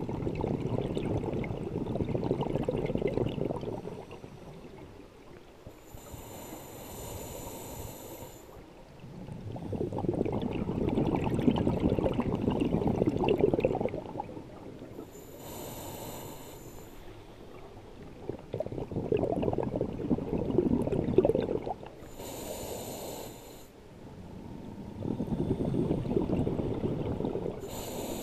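Scuba diver breathing through a regulator underwater: four long bubbling exhalations, each followed by a short hiss of inhalation through the regulator.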